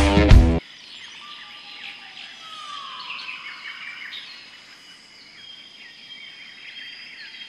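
Rock music cuts off about half a second in, giving way to a quieter nature ambience: scattered bird chirps and whistles over a steady high insect drone.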